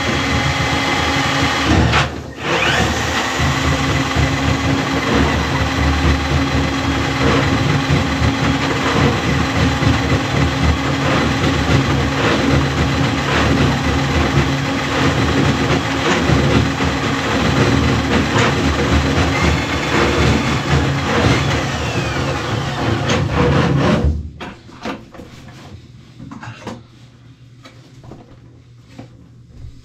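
Battery-powered Milwaukee M12 drain snake running, its bulb-head cable spinning down a clogged bathtub drain. The motor cuts out for a moment about two seconds in, runs on steadily, then stops about four-fifths of the way through, leaving only faint clicks.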